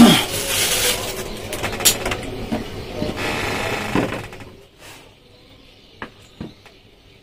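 Metal parts of a Yamaha 15 hp outboard's lower-unit gearbox clinking and rattling as bearings and gears are handled and fitted by hand. A loud clank at the start, busy clattering with sharp clicks for about four seconds, then it goes quiet apart from a couple of single clicks near the end.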